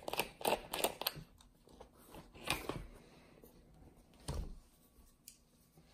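Scattered light clicks and knocks of hands working a front wheel off a 1/8-scale RC truggy, with a louder knock about four seconds in.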